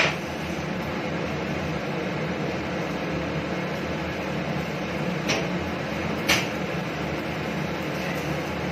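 Steady whooshing hum, like a fan running, with a knock at the start and two sharp clicks about five and six seconds in.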